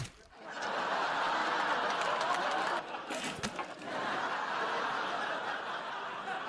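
Studio audience laughing, two swells of laughter with a short dip about three seconds in.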